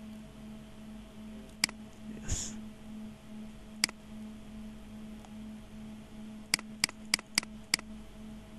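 Computer mouse clicks placing the points of a sketched line: a single click, another about two seconds later, then a quick run of five near the end. A brief soft hiss comes once, and a steady low electrical hum runs under it all.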